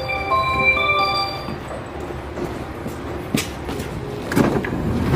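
An electronic chime tune of ringing notes in two repeated phrases at a train door on the platform, ending about a second and a half in. Then the noise of stepping aboard, with a couple of sharp knocks.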